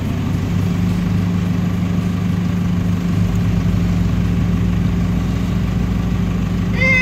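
SUV engine running at steady, unchanging revs, a constant low drone with road rumble beneath it.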